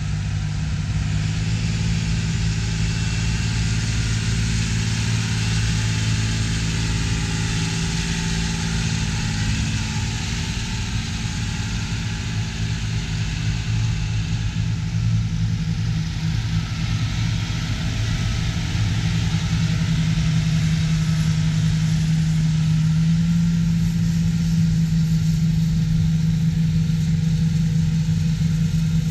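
Diesel engines of John Deere 8000-series tractors running steadily as they push and pack corn silage on the pile, a low engine drone that grows louder after about twenty seconds.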